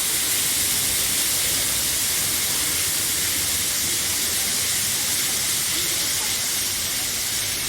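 Waterfall pouring down close by: a steady, hissing rush of falling water.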